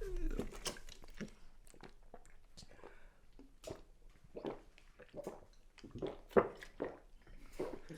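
Faint scattered clicks and small wet mouth sounds, with a slightly louder one about six and a half seconds in.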